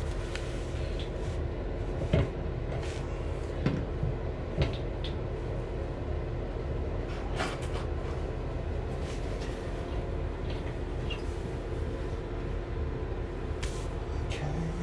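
A steady low mechanical hum with a constant tone, broken by a few light clicks and knocks of metal tools being handled.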